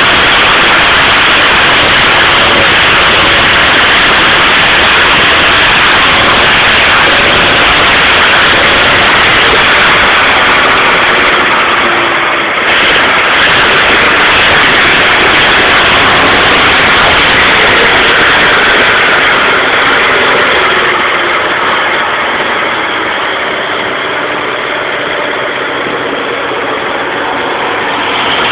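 1979 Chevrolet Opala engine running, its exhaust rumbling loudly and steadily. The level dips briefly about halfway through and eases off somewhat near the end.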